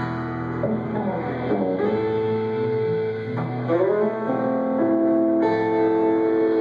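A live band playing amplified guitar music, electric and acoustic guitars over held chords, with a lead line whose notes bend up and down in pitch in the first few seconds.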